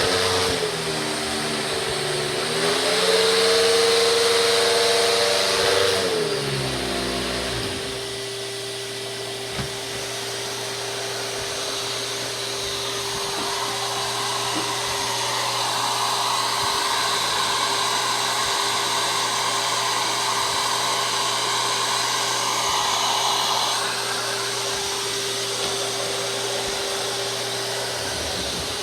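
Hoover Spectrum 800 canister vacuum running, with a steady motor whine throughout. Over the first seven seconds a second wavering pitched hum, from the power nozzle, rises and then drops away; the nozzle's Quadriflex brush roll runs sluggishly, which the owner puts down to bearings that need soaking. A broad rushing noise swells between about 13 and 24 seconds in.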